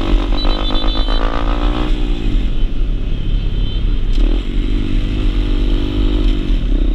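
Single-cylinder 125 cc motorcycle engine under way: its pitch rises for about two seconds as the bike accelerates, drops at a gear change, then holds steady at cruising speed. Low wind rumble on the microphone runs underneath.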